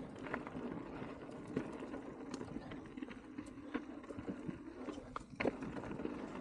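Mountain bike rolling along a dirt trail: steady tyre noise with scattered small clicks and rattles from the bike.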